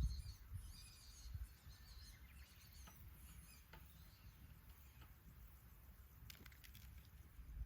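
Near silence: faint low background rumble with a few faint, scattered ticks.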